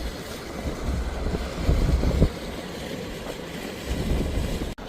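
Wind buffeting the microphone outdoors: uneven low rumbling gusts over a steady rushing noise, with a sudden brief dropout near the end.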